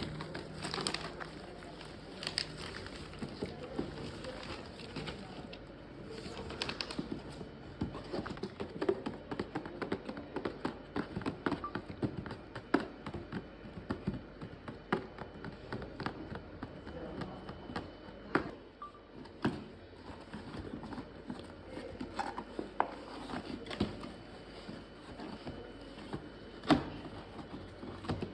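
Toy packaging being opened and handled: plastic and cardboard crinkling and rustling, with many irregular sharp clicks and snaps, a few of them loud.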